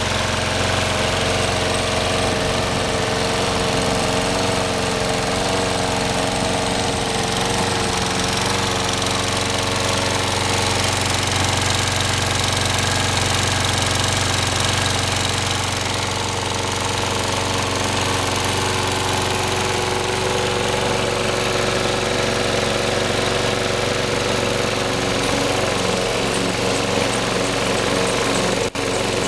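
Briggs & Stratton Quantum single-cylinder four-stroke engine on a Toro Recycler 22-inch lawn mower running steadily, freshly cold-started.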